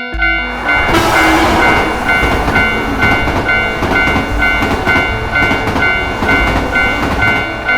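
Japanese level-crossing alarm ringing its two-tone clang at about two strokes a second, while a train rushes past with a loud rumble and rattle that comes in about a second in.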